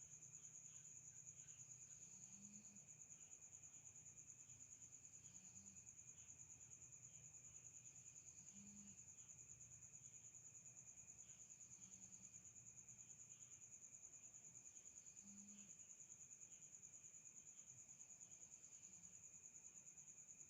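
Faint, steady high-pitched trilling of crickets, unbroken throughout, with a faint short low blip every three seconds or so.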